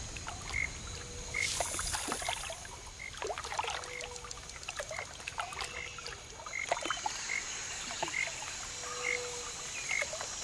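Outdoor lakeside nature ambience: a short high call repeats evenly a little under once a second, with scattered small splashes and lapping of water.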